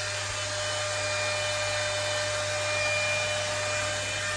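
Hot-air curling styler, an imitation of the Dyson Airwrap, running steadily: its fan blowing air with a steady whine.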